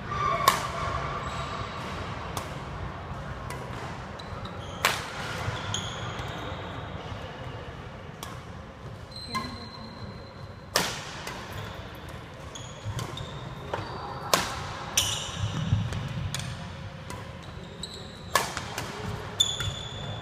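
Badminton rackets hitting shuttlecocks in a smash-and-drop drill: sharp cracks a few seconds apart, the loudest at about half a second, 5, 11, 14.5 and 18.5 seconds in, echoing in a large gym. Between hits, court shoes squeak briefly on the wooden floor.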